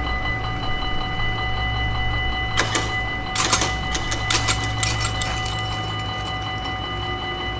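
Dutch level-crossing warning bell ringing steadily over a low rumble, with a run of sharp clattering knocks from about two and a half to five and a half seconds in.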